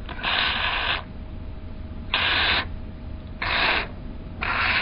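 Aerosol spray lubricant hissing out in four short squirts, about half a second each, onto the carburetor's slow jet so that it slides into place.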